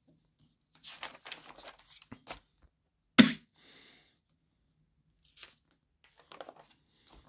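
Glossy magazine pages rustling as they are handled and turned by hand, with one sharp slap about three seconds in and softer rustles near the end.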